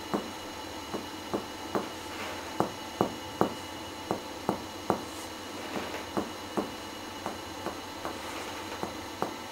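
Finger-to-finger chest percussion during a lung examination: one middle finger tapping on a plexometer finger laid on the chest wall along the mid-axillary line. The result is a steady series of short knocks, about two or three a second.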